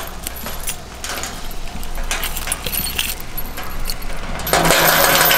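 A large ring of keys jangling and clicking as keys are tried one after another in a gate lock. About four and a half seconds in, a louder rushing noise with a steady hum comes in over it.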